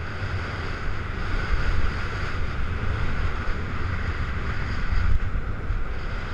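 Wind buffeting the microphone of a skier's head-mounted camera as it moves fast downhill, a steady low rumble, over the hiss of skis sliding on packed snow.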